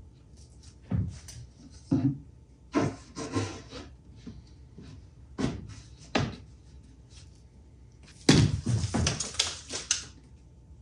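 Compressed-air tool on a shop air hose going off in short sharp bursts of hissing air: a few single bursts spaced over the first six seconds, then a longer, louder run of rapid bursts near the end.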